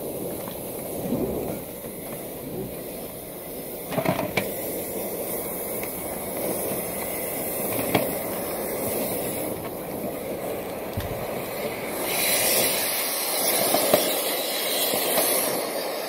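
Dryer vent cleaning rod spinning and scrubbing through a lint-clogged dryer duct, a steady rushing and rattling with a couple of sharp knocks about four and eight seconds in. From about twelve seconds in, a louder, brighter hiss as the packed lint is driven out of the vent.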